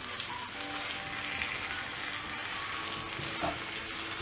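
Wet rice-flour batter sizzling in a hot oiled kadai as a wooden spatula stirs it, with a few scrapes of the spatula against the pan. The batter is being cooked down into a thick dough for uppu urundai.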